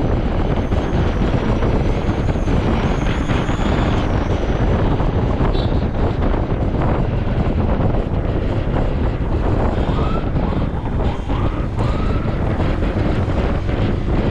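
Steady wind noise rushing over the camera microphone of a Honda ADV 160 scooter riding at about 50 km/h, with the scooter's running and road noise beneath.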